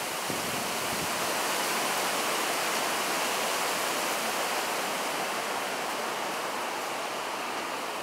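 Strong typhoon wind rushing through the foliage of the trees: a steady hiss of tossing leaves that swells a little in the middle and eases off toward the end.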